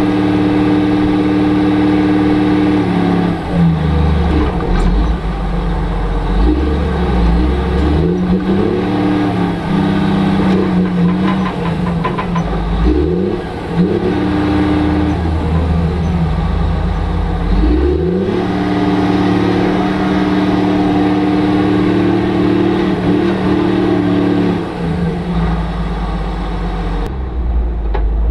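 Caterpillar 966G Series II wheel loader's diesel engine revving up and down repeatedly as the bucket is raised and tilted, then holding steady at high revs for several seconds before dropping back lower near the end.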